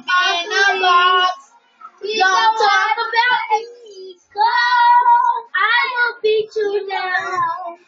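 Young girls singing unaccompanied, in short wavering phrases of about a second each with brief pauses between them.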